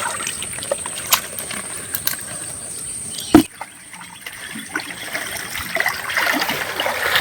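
Water trickling and splashing, with scattered small knocks and one sharp knock about three and a half seconds in.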